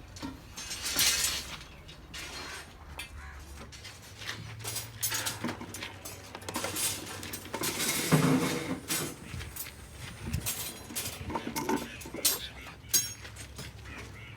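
Metal tools and parts clinking and knocking irregularly during work on an excavator's differential gear, over a steady low hum.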